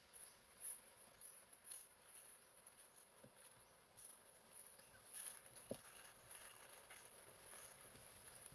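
Near silence: faint, high-pitched insect chirping pulses on and off, with a couple of soft knocks about three and six seconds in.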